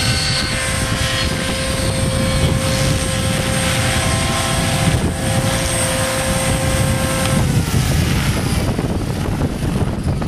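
Furion 450 radio-controlled helicopter: a steady high whine from its motor and rotor that drops in pitch and fades about seven and a half seconds in as the model comes down onto the grass. Gusting wind on the microphone sits underneath.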